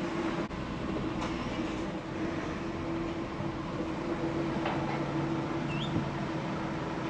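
Steady hum of a car idling and creeping forward at low speed, heard from inside the cabin, with a constant droning tone over a noise bed.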